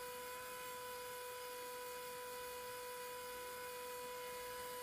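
Bohning cresting machine's electric motor running at a steady speed, spinning a wood arrow shaft in its chuck: an even hum with a higher whine over it.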